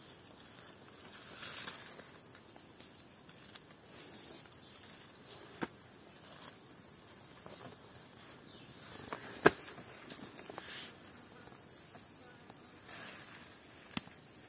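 A steady, high-pitched chorus of insects, with a few sharp clicks; the loudest click comes about halfway through.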